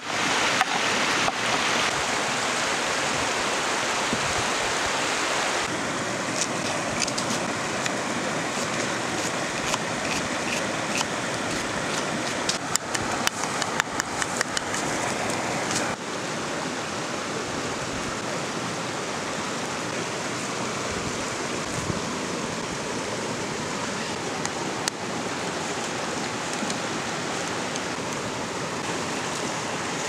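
A stream rushing steadily over rocks. In the first second, a knife chops through minced beef against a wooden board in quick sharp taps, and scattered taps come again around the middle.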